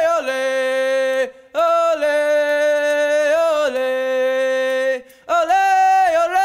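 A single voice singing long, held notes unaccompanied, gliding from one pitch to the next, with two short breaths between phrases.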